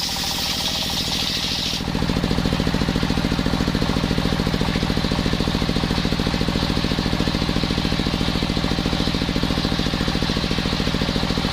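An engine-driven circular sawmill running with a fast, even engine pulse. About two seconds in, a high hissing stops and a lower, louder drone takes over until the end.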